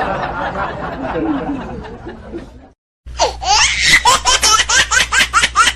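A busy mix of sound fades away and cuts to silence. About three seconds in, a burst of high, rapid laughter starts, short 'ha' pulses about five a second.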